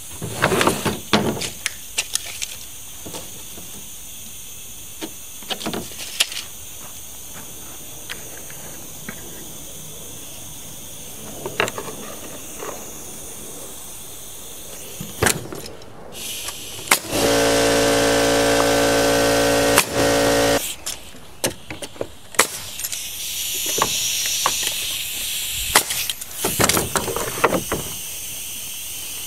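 An electric power tool motor runs steadily for about three and a half seconds in the middle, the loudest sound here, amid scattered knocks and clicks of wood pieces being handled and worked.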